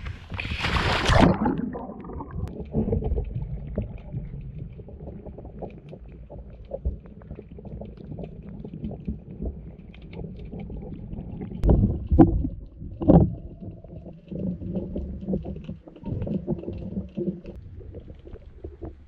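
Underwater sound picked up by a diver's camera: a muffled low rumble with scattered small knocks as a free diver swims. About a second in there is a loud burst of splashing noise as the diver goes into the water, and two louder knocks come about two-thirds of the way through.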